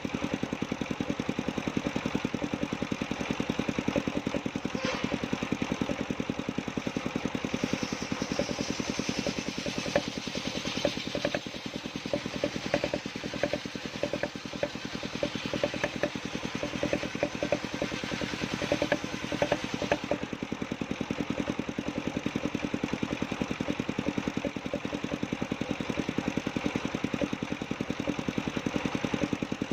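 Engine of a mobile circular sawmill running steadily with a fast, even pulse. From about seven to twenty seconds in, a higher hiss rides over it as the circular saw blade cuts through a coconut-palm log.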